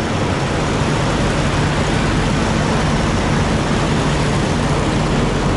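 Diesel truck engines idling, a steady low hum under a loud, even rush of engine and fan noise.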